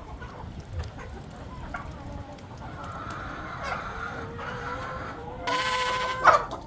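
A flock of chickens clucking, with a rooster crowing: one long call that swells near the end and breaks off with a sharp peak.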